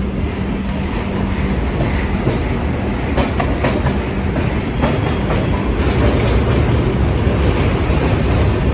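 Farakka Express LHB passenger coach running on the rails: a steady wheel rumble with sharp clicks of the wheels over rail joints, crossing a steel truss bridge. It grows a little louder in the second half.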